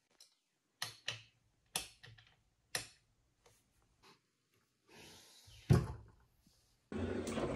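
Wooden nightstand drawer being handled: a few light knocks, then the drawer shut with one sharp, loud thump. A steady rustling noise follows near the end.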